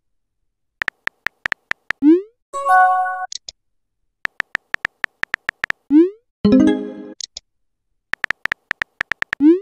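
Chat-app message sound effects: a quick run of keyboard tap clicks, a rising swoosh as the message sends, then a short electronic chime. The sequence plays twice in full and starts a third time, ending on the swoosh.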